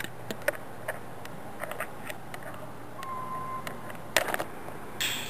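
Scattered light clicks and knocks over a steady low hum, with a brief high squeak about three seconds in and a cluster of louder knocks a little after four seconds.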